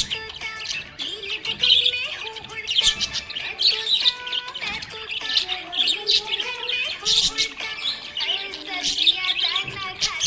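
Budgerigar (budgie) chirping and warbling without a break, a busy run of quick bright chirps and short pitch glides: the lively chatter of a contented budgie.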